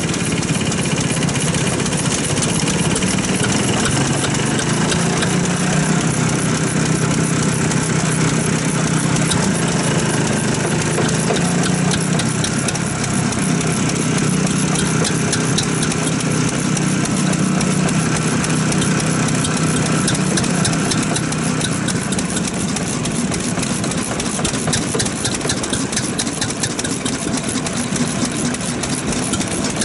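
Old Nagase single-cylinder diesel stationary farm engine running steadily with a rapid, even knocking beat, soon after being started.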